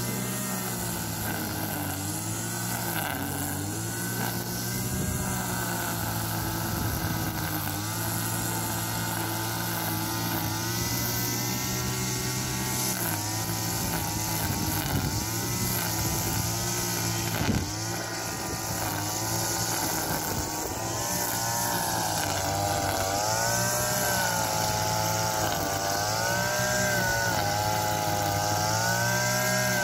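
Backpack two-stroke petrol brush cutter running while it cuts grass, its engine pitch rising and falling over and over as the head sweeps through the grass, with wider swings in the second half.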